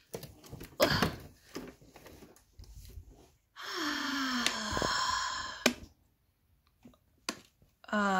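Light knocks and clicks as a plastic doll is moved about a toy bathroom, then about two seconds of steady hissing trickle, with a falling sigh-like 'ahh' at its start: water poured onto the floor to stage the doll wetting herself.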